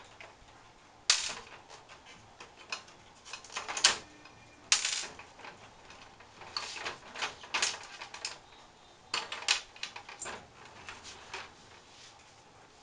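Plastic panels and parts of a Canon iR3300 photocopier being handled and unlatched for removal: irregular clicks, knocks and short scrapes of plastic on plastic, with a few sharper knocks about a second in, around four to five seconds in, and around nine seconds in.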